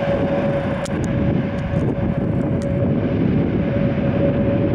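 Airbus A321LR jet airliner touching down on a wet runway: a steady engine rumble with a constant whine held over it.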